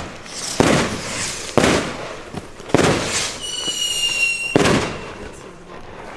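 Cobra P1 firecrackers (0.5 g flash powder) going off one after another: four sharp bangs one to two seconds apart, each echoing briefly. A high, steady whistle sounds for about a second between the third and fourth bang.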